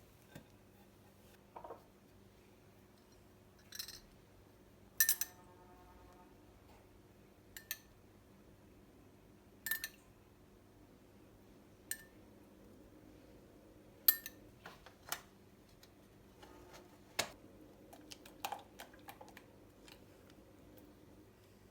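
Scattered clinks and taps of dishes and utensils being handled in a kitchen, about a dozen separate knocks with gaps between them; the loudest, about five seconds in, rings briefly like glass or china.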